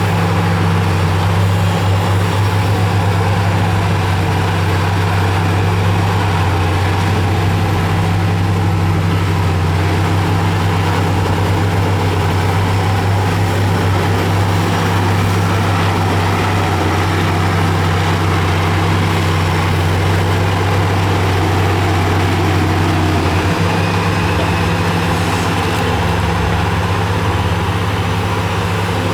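Heavy diesel engine of earthmoving machinery running steadily at work, a deep continuous drone whose note shifts slightly about three quarters of the way through.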